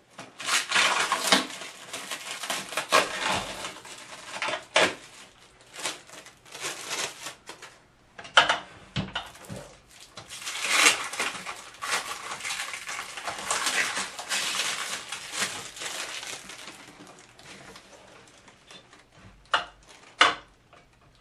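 Plastic wrapping crinkling and hard plastic steamer parts knocking together as they are unwrapped and handled, in irregular bursts with sharp clicks.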